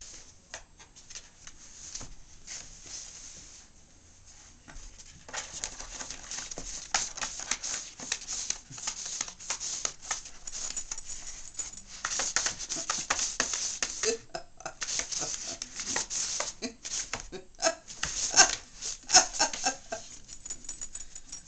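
A cat scrabbling and scratching about inside a plastic laundry basket, its claws and paws rasping and clicking on the plastic, with the basket knocking as it is handled. Faint at first, busier from about five seconds in, with a few sharper knocks near the end.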